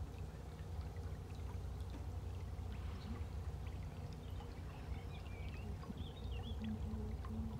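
Narrowboat under way: a low, steady engine thrum with water rippling and splashing at the bow.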